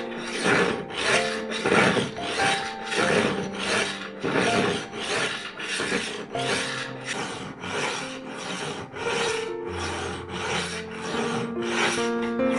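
A kitchen knife blade drawn again and again through the first whetstone slot of a manual pull-through knife sharpener: repeated scraping strokes of steel on stone, about two to three a second.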